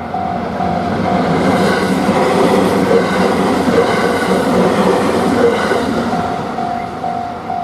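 Hiroden tram passing over a level crossing, its wheels running loudly over the rails and swelling to a peak in the middle. The crossing's warning bell rings about two and a half strikes a second; it is drowned out by the tram and comes clear again about six seconds in.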